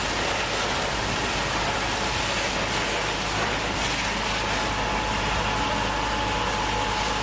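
Water jet from a fire hose spraying onto a burning car, a steady rushing hiss of spray and steam, with a faint steady whine in the later seconds.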